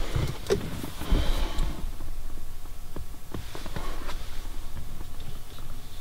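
Scattered light clicks and taps with soft rustling from hands working at the shifter opening in the transmission tunnel, wiping excess RTV sealant off the flange.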